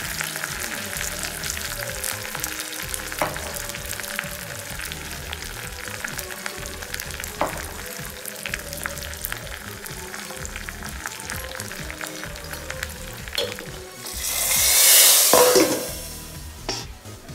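Tempering of dried red chillies, leaves and spices sizzling in hot oil in a small aluminium kadai, with steady frying hiss and many small crackles and pops. Near the end a much louder hiss swells for about two seconds and fades.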